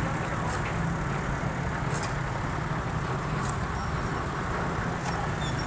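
Road traffic noise: a steady low vehicle-engine rumble, with a few faint ticks about every second and a half.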